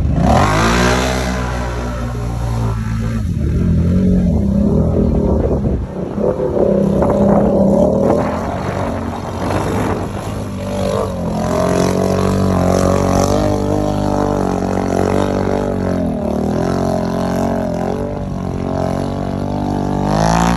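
ATV engine revving hard as the machine churns through a water-filled mud pit, its pitch climbing and dropping again and again as the throttle is worked.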